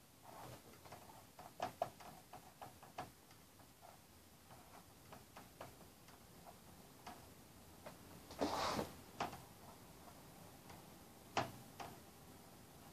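Dry-erase marker writing on a whiteboard: a run of light ticks as the tip taps out small letters and bonds, a louder brief rub about two thirds of the way through, and a single sharp tick near the end.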